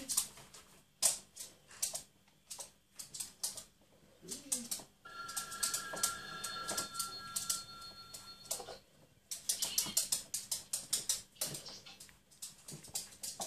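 Jack Russell terrier puppy's claws clicking rapidly on a wooden floor as it hops about on its hind legs, in quick runs of taps. About five seconds in, a high steady tone sounds for about two and a half seconds.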